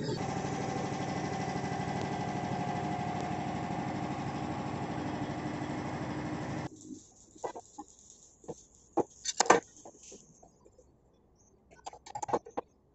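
A machine runs steadily with a constant hum, then cuts off suddenly a little past halfway. Scattered knocks and clicks follow, one of them loud.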